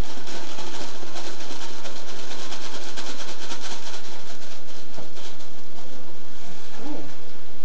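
Plastic pouch of baking mix crinkling and rustling as it is pulled open and shaken out over a glass mixing bowl, a busy run of rapid crackles.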